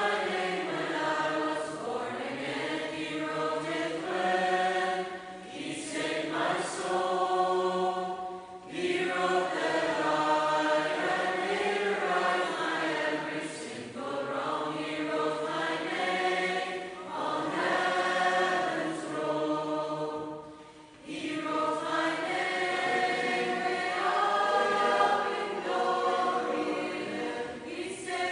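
A choir singing a slow hymn-like tune in long held phrases, with short breaths between phrases.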